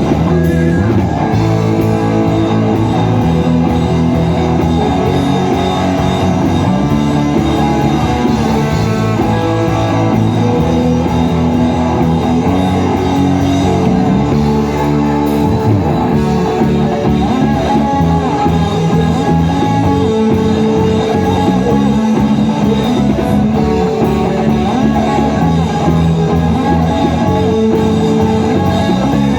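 A live worship band plays an instrumental passage of a praise song, led by guitar over a steady band backing, with no vocals.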